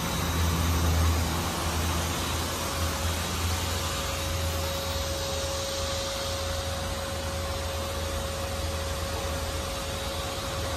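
Steady machine noise: a low hum under an even hiss, with a thin steady whine coming in about three and a half seconds in.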